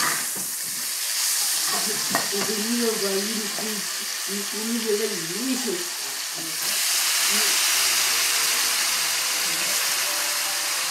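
Food sizzling in a wok as it is stir-fried, with a few clicks of a spatula against the pan early on. The sizzle gets louder about two-thirds of the way through as shredded carrot drops into the hot wok. A low wavering voice is heard in the first half.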